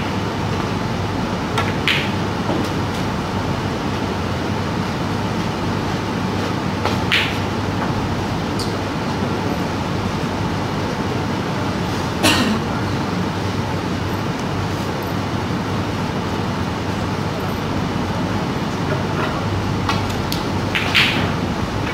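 Snooker balls and cue giving a few sharp clicks several seconds apart, the loudest about twelve seconds in, over a steady room hum.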